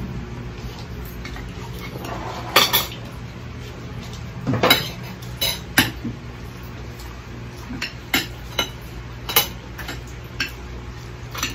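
Metal cutlery clinking and scraping against plates during a meal: several sharp, separate clinks, the loudest a few seconds in, over a steady low hum.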